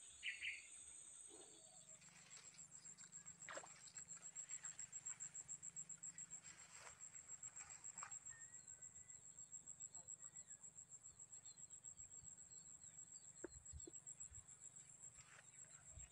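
Near silence with a faint, high-pitched insect trill pulsing steadily throughout, and one brief louder high chirp right at the start.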